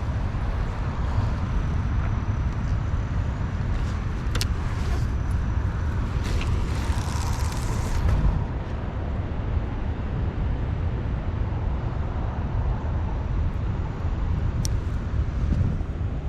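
Steady low rumble of wind buffeting the microphone outdoors, with a couple of sharp clicks and a brief hiss about seven seconds in.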